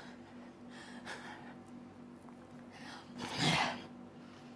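A woman's breathing between lines: a few quiet breaths, then a short, sharper breath out about three and a half seconds in, like a scoff.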